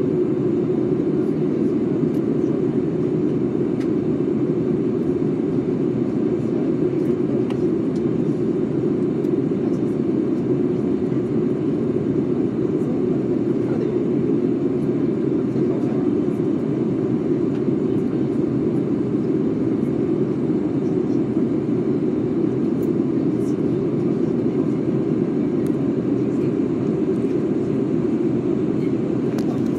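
Steady cabin noise of an Airbus A320-family jet airliner during its descent to land: an even rumble of engines and rushing air heard from a seat beside the wing.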